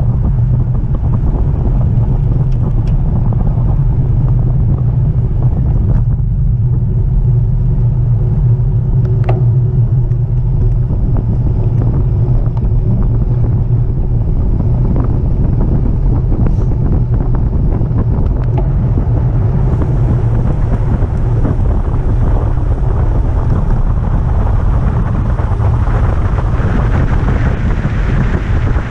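Wind buffeting the microphone of a camera on a moving bicycle: a loud, steady low rumble that grows brighter and stronger in the last third.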